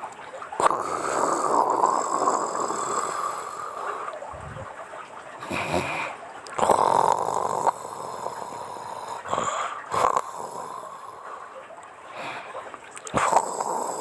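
A woman snoring in her sleep. A long rasping breath comes just after the start, then shorter loud snores every three seconds or so.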